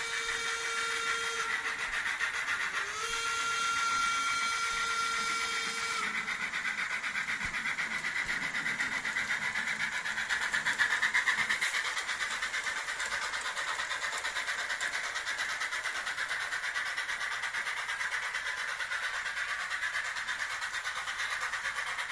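Model BR 18 steam locomotive and its passenger train running on the layout track. There are two long steady tones in the first six seconds, the second cutting off sharply; after that there is a fast, even ticking rhythm of the running train.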